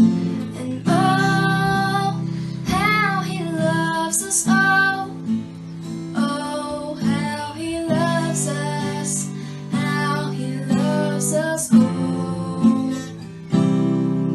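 Music: an acoustic guitar strummed under a woman's singing voice, fading out at the end.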